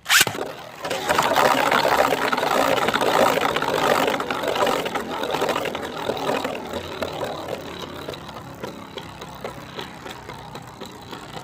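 A sharp snap as a 3D-printed Beyblade (Ratchet Tortuga) is released from its launcher, then the top spinning with a dense, continuous rattling whir that slowly fades as it loses speed.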